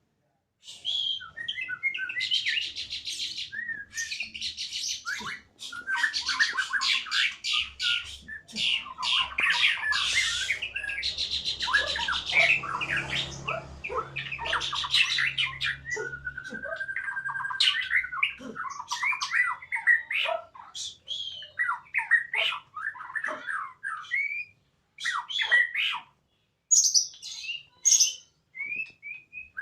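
Several songbirds singing and chattering at once: rapid trills, chirps and harsh squawks overlapping, with one long even whistle about sixteen seconds in, thinning to scattered separate calls near the end.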